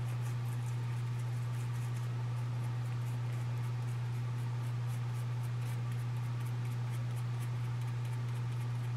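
Toothbrush scrubbing black-powder residue off a muzzleloader's breech plug: faint scratchy strokes, a few a second. A steady low hum runs under it and is the loudest sound.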